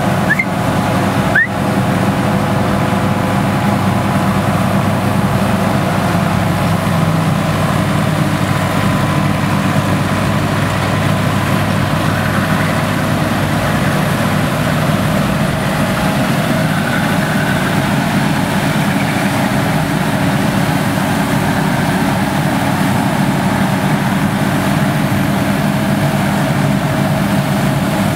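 Vintage Nuffield tractors running steadily under load, each pulling a Dronningborg trailed combine harvester that is threshing as it goes, with the engines and combine machinery blending into one continuous mechanical drone. There is a brief break in the sound about a second and a half in.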